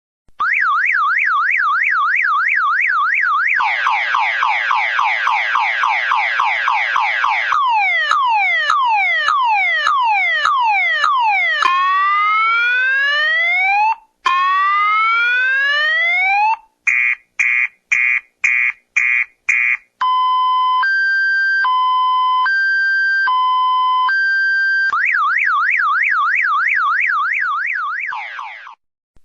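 Electronic police siren running through its tone patterns. It starts with a fast up-and-down yelp, then repeated falling sweeps, then two long rising wails. Short pulsed beeps follow, then a two-tone hi-lo alternating about once a second. The fast yelp returns and ends in a falling drop.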